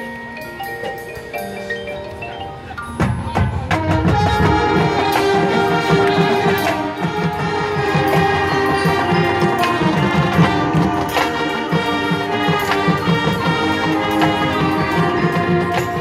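High school marching band playing its field show: a soft passage with mallet percussion from the front ensemble, then about three seconds in the full band comes in loudly, winds and drums together, and keeps playing at full volume.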